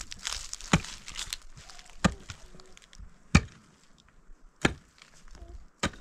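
Pickaxe striking into a dry earth bank: five sharp chops, one about every second and a quarter.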